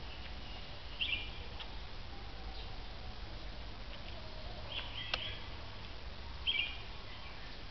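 Caged red-whiskered bulbuls giving short, high chirping calls: one about a second in, a couple around five seconds and another about six and a half seconds in, with a sharp click near five seconds over a steady low background hum.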